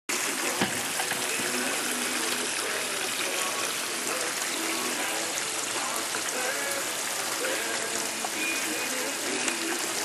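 Steady rushing water noise, an even hiss that starts abruptly and holds level, with faint distant voices underneath.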